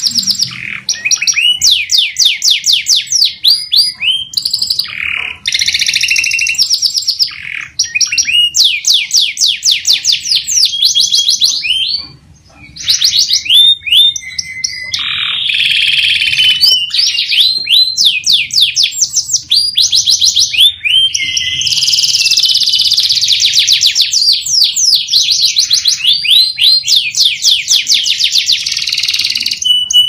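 Domestic canary singing a long, continuous song of fast rolling trills made of rapidly repeated notes, with one short pause partway through.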